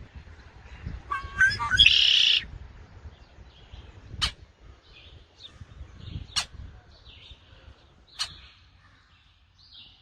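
Birds chirping and calling. About a second in there is a loud, harsh call, then single sharp chips about every two seconds.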